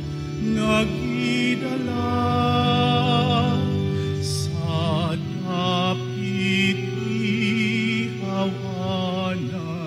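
Mixed church choir singing a sacred song in long held notes with vibrato, over sustained electronic keyboard chords.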